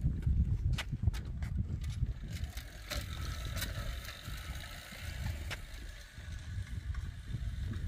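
Fiskars manual push reel mower rolling over the lawn: a steady low rumble with scattered light clicks and ticks from the freewheeling reel, thickest in the first few seconds.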